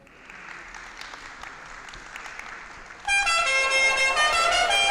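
Applause, then about three seconds in a loud blare of horn tones, several pitches held at once.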